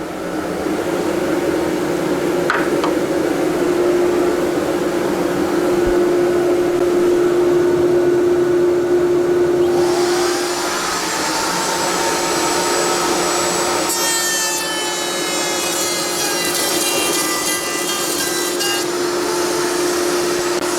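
Router in a router table running at a steady high speed and cutting a dado into a 2x4. The high end of the sound changes about halfway through.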